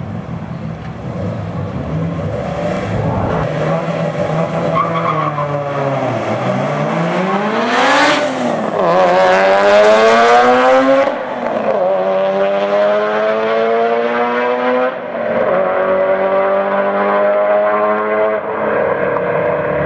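Two turbocharged AWD drag cars, a Mitsubishi Eclipse GSX and a Subaru Impreza WRX, idle and creep at the start line. About 8 s in they rev and launch with a short burst of tire noise. Their engines then pull hard through the gears, the pitch rising and dropping at upshifts about 11, 15 and 18 s in as the cars run away down the quarter mile.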